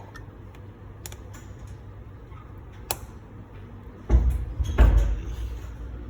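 Handling of an open MacBook Air on a workbench: a few small clicks and taps, then two loud dull thumps less than a second apart near the end.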